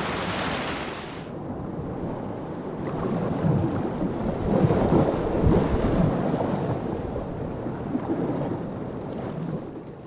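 Wind and sea noise with no tone in it. About a second in it gives way to a duller, muffled rush of water that is loudest in the middle.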